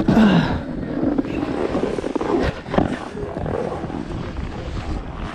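A brief low falling groan at the very start, then the scraping and rustling of a snowboard and winter gear moving on snow close to an action camera, with wind rumbling on its microphone.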